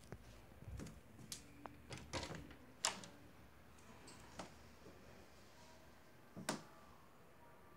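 Interior door being unlatched and swung open: a string of clicks and knocks from the latch and the door, the sharpest about three seconds in and another loud knock near the end.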